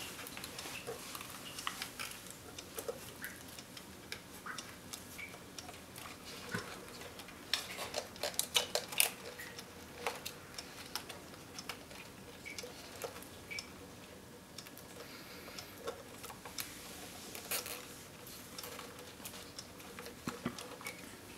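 Small irregular clicks and rustles of wires being handled and gathered with a plastic cable tie, with a quick run of clicks about eight seconds in.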